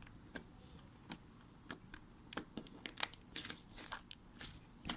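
Smiggle slime with tiny foam beads being squeezed and poked by hand, giving faint, irregular crackling clicks and pops.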